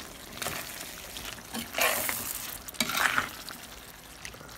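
A spoon stirring and scraping through beef liver, onions and chopped chipotle in a clay pot, a few scraping strokes over a steady soft sizzle, the loudest about two seconds in.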